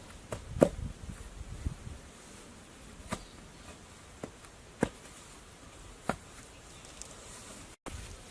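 A handful of separate sharp knocks or taps, irregularly spaced about one to one and a half seconds apart, the loudest about half a second in, over a quiet outdoor background; the sound cuts out abruptly for a moment near the end.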